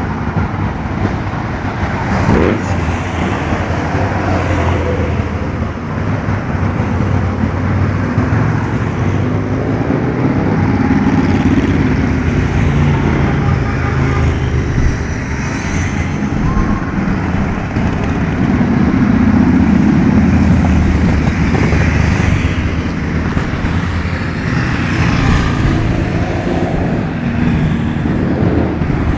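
Motor vehicle engines running with road noise, rising and falling in level without a break.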